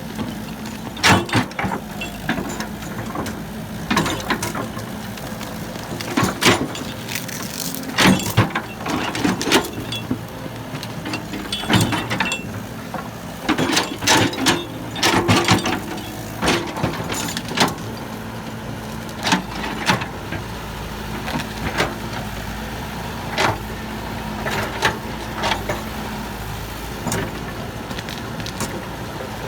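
Heavy diesel machinery engine running steadily, with frequent sharp clanks and knocks of metal and material, typical of an excavator working and loading a dump truck.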